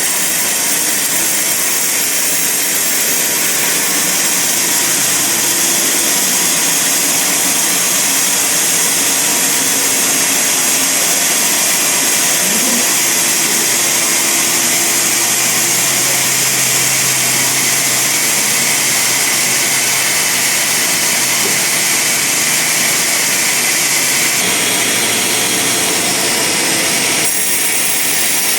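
Band sawmill running with its blade cutting through a large log: a loud, steady, high-pitched hiss over a faint low hum. The sound shifts about 24 seconds in and again near the end.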